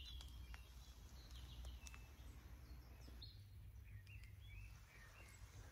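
Near silence with faint birdsong: a few short bird chirps near the start and again about four to five seconds in, over a low steady rumble.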